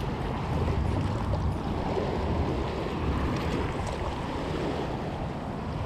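Small waves washing and lapping against shoreline rocks, steady, with wind buffeting the microphone.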